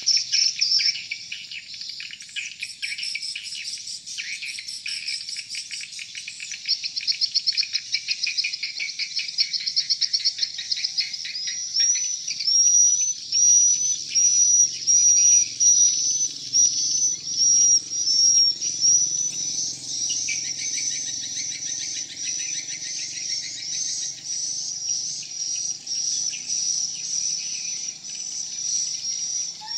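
Swiftlet calling sound played from the tweeters of swiftlet houses: dense, rapid electronic chirping and trilling. From about halfway in, a repeated chirp about twice a second sits over the trill. It is the lure call switched on to draw swiftlets into the building.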